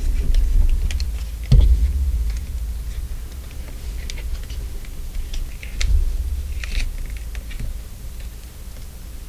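Small clicks and scratches of fingers and a fingernail working the rubber grip loose from a Canon 60D's plastic body, as the camera is handled. Dull thumps come about one and a half seconds in and again around six seconds in.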